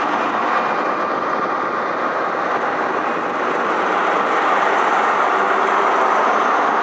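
Two SNCF BB 75300 diesel-electric locomotives coupled in multiple, passing along the platform with their diesel engines running; a loud, steady mechanical noise.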